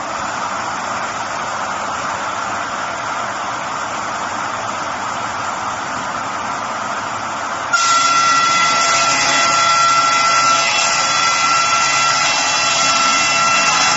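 Circular sawmill running with a steady rushing noise; about eight seconds in it suddenly gets louder and a steady high-pitched whine of several tones sets in and holds.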